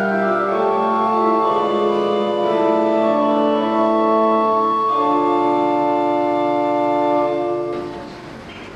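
Organ playing slow, held chords that change step by step; the music stops near the end.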